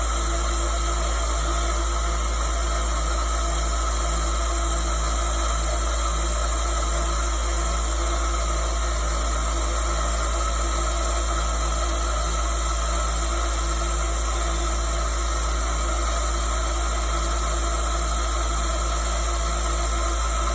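Spindle of a Genmitsu PROVerXL 4030 desktop CNC router running steadily, a continuous hissy whine with several steady tones over a low hum: the noise its owner finds abnormal.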